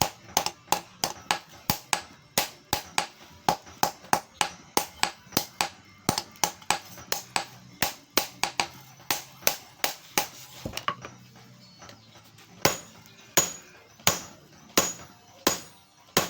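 Blacksmith's hammer striking metal on an anvil in a steady rhythm of about three blows a second, each with a bright ring; after a short pause about eleven seconds in, the blows come slower, about one every two-thirds of a second.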